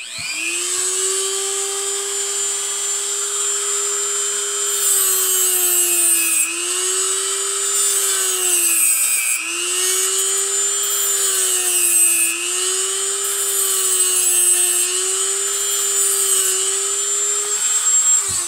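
Corded Dremel rotary tool with a cut-off wheel running at high speed, grinding through the metal links between the lithium cells of a battery pack. The motor's steady whine dips in pitch about four times as the wheel bites, with a hissing grind over it, and it shuts off near the end.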